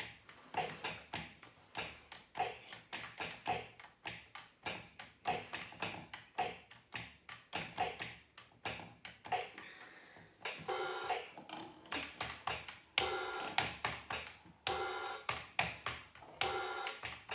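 Toy electronic keyboard being played key by key: short notes with the tap of its plastic keys, about two a second. From about ten seconds in the notes are held longer.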